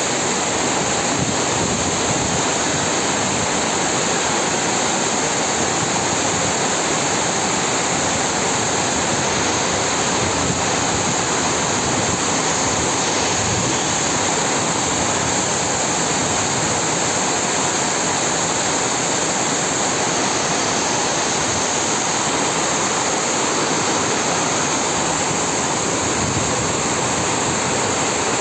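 Heavy rain falling, a steady dense hiss that does not let up.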